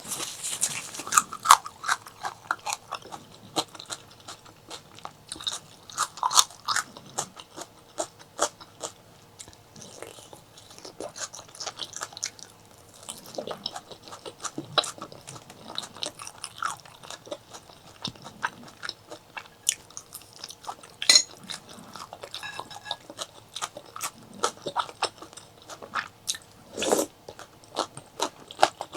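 A person chewing and biting food close to the microphone, with many short, irregular sharp clicks and wet mouth sounds.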